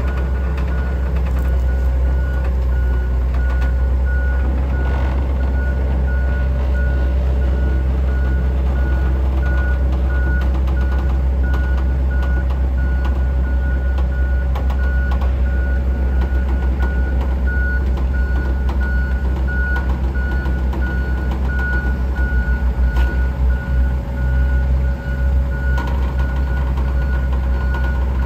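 Linde forklift moving slowly under a heavy load, its engine running with a steady deep rumble while its warning beeper gives a regular series of high beeps.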